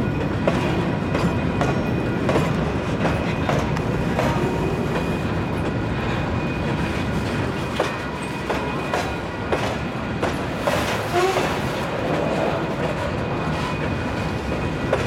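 Freight train of grain hopper cars rolling past, the wheels clicking over rail joints. A brief faint wheel squeal comes about two-thirds through.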